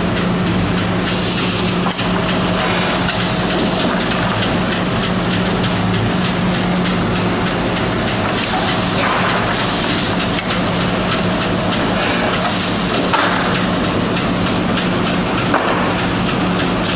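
Wood-processing machine running: a steady hum under a noisy hiss that swells and fades every few seconds.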